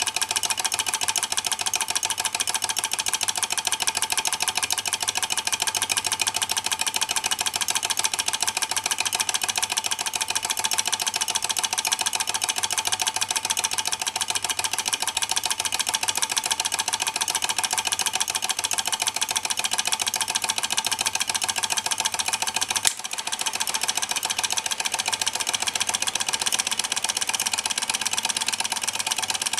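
Small flame-heated Stirling beam engine running fast: a steady, rapid mechanical clatter from its beam linkage, connecting rods and flywheels. A single sharp click about three-quarters of the way through, with a brief dip in the sound after it.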